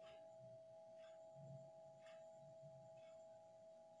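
Near silence: a faint steady high-pitched tone with a few faint soft ticks about once a second.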